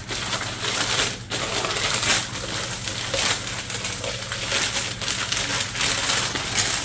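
Newspaper packing crumpling and rustling as it is pulled off a ceramic cookie jar by hand: a dense, continuous run of crackles with a brief lull about a second in.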